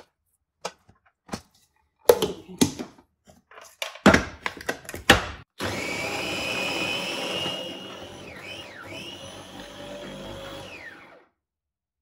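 Sharp knocks and clatter as the mixture goes into the glass bowl and the chopper is put together. Then a small electric food chopper runs for about five seconds, coarsely mincing boiled chicken and chana dal. Its whine dips twice under load before it stops.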